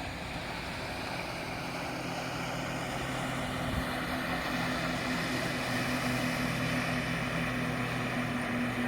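Motorboat engine running steadily over a rushing wash of water and wind, slowly growing louder.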